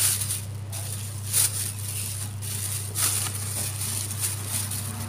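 Brief rustles of plastic food wrapping, three or so short ones, over a steady low hum.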